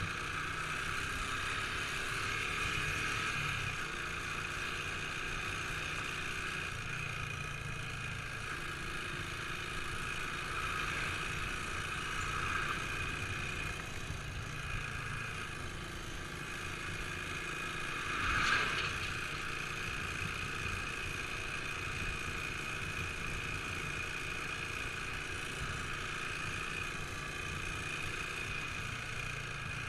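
Motorcycle engine running at road speed, its note shifting gently with the throttle, under steady wind rush on the microphone. A brief louder whoosh comes about eighteen seconds in.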